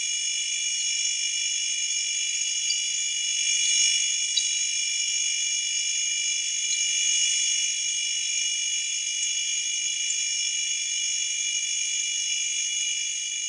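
A high-pitched drone of several steady tones over a hiss, with no low sound at all and a few faint ticks; it starts to fade out near the end.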